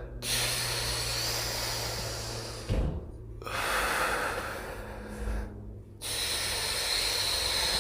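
A person breathing heavily through an exercise: three long breaths of about two seconds each, with short pauses between, and a brief low thump just before the second breath.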